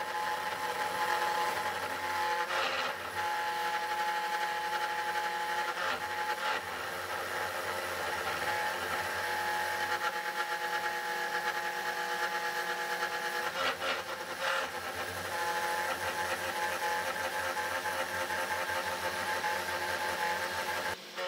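The spindle motor of a CNC 3018 Pro Max desktop router whines steadily as a 30-degree V-bit engraves isolation tracks about 0.2 mm deep in a copper-clad circuit board. The pitch shifts briefly a few times.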